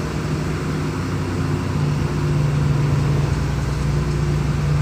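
Car engine and road noise heard from inside the moving car's cabin: a steady low hum that grows a little louder about two seconds in.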